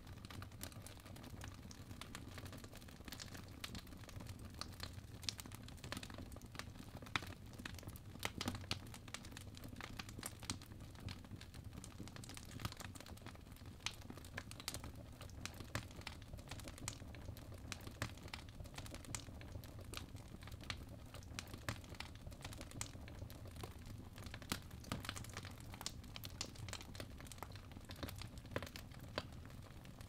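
Fireplace fire crackling: irregular sharp pops and snaps, scattered throughout, over a steady low rumble.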